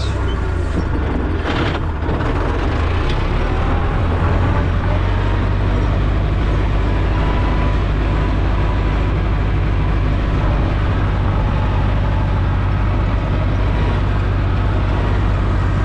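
Ursus C-360 tractor's four-cylinder diesel running steadily as the tractor drives across the field, heard from inside its cab. There is a brief knock about one and a half seconds in.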